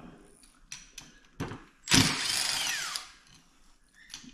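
Cordless drill driver with an Allen-key bit running for about a second, undoing a bolt on a go-kart's wheel rim; its pitch falls as the motor winds down. A small knock comes about half a second before it.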